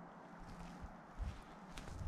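Quiet outdoor background hiss with a couple of soft knocks in the second half.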